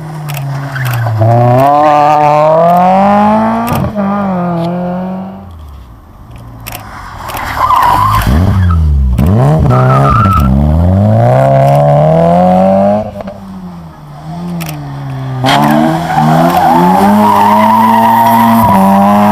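Three rally cars passing one after another through a tight corner, a Renault Clio, a Volkswagen Golf II and an Opel Kadett. Each engine revs hard, its pitch dropping into the corner and rising again as the car accelerates away.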